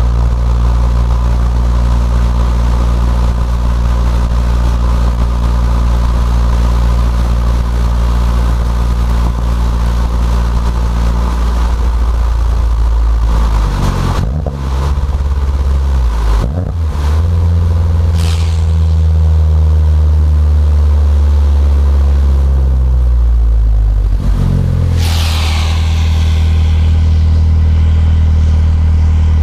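Fiat 500 Abarth's turbocharged 1.4-litre four-cylinder engine, breathing through a catless downpipe and Ragazzon cat-back exhaust with twin mufflers, heard inside the cabin. It drones steadily at a cruise of about 2,000 rpm. About halfway through its pitch shifts and settles lower as the car slows toward a stop.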